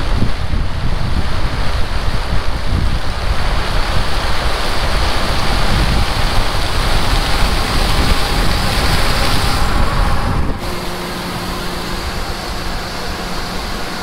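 Wind buffeting the microphone over the steady running of a John Deere S780 combine harvesting corn, its hiss growing louder as the machine comes closer. About ten seconds in, the sound cuts abruptly to a quieter, steady machine hum with a low, even drone.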